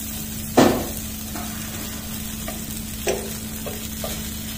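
Chicken seekh kebabs frying in butter on a hot flat tava, a steady sizzle, while the metal skewers knock against the pan as the kebabs are turned: one sharp knock about half a second in, another about three seconds in, and a few lighter taps between.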